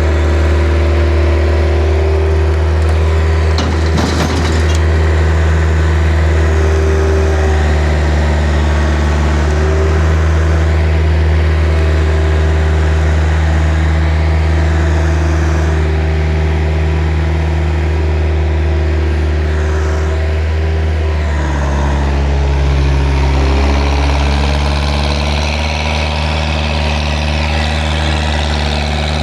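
Skid steer's engine running steadily at a constant speed, its note changing about 21 seconds in; a brief knock sounds about 4 seconds in.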